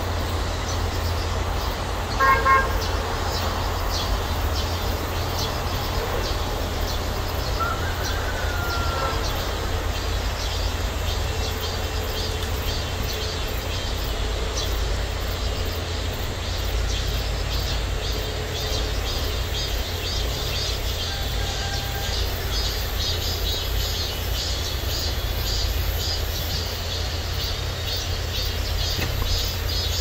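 Cicadas buzzing in a steady, high-pitched pulsing chorus over a steady low rumble. About two seconds in, a short horn-like toot sounds once.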